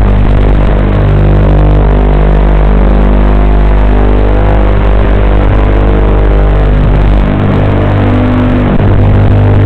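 FPV quadcopter's onboard audio: a loud, steady buzzing drone with a strong low hum that hardly changes pitch.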